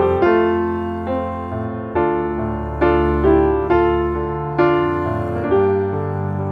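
Background piano music: single notes and chords struck one after another, each starting sharply and fading before the next.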